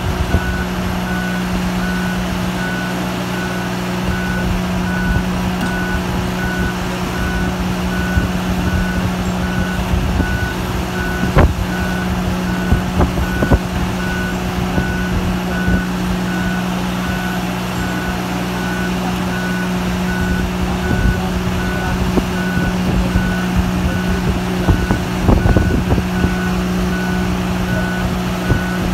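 Marine travel lift running: its engine drones steadily while its warning alarm beeps over and over as it works. A sharp metallic knock sounds a little before the middle, with a few lighter knocks here and there.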